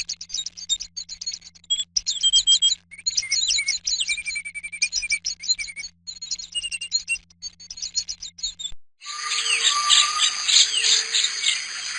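Small birds chirping in rapid high twittering phrases over a faint low hum. About nine seconds in it cuts abruptly to a different recording: more birds singing over a steady high insect drone.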